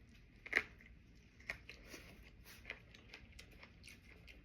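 Close-up mouth sounds of chewing and crunching on cucumber sushi boats: a sharper crunch about half a second in, then a run of smaller crunches.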